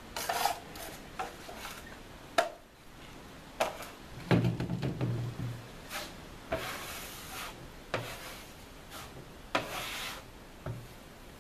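Drywall taping knife scraping and smearing joint compound across a mesh-taped drywall patch in a series of irregular strokes, laying on a skim coat.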